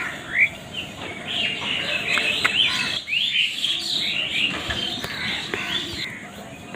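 Many small birds chirping at once in a busy, overlapping chorus of short rising chirps, with a few sharp clicks; the chorus thins near the end.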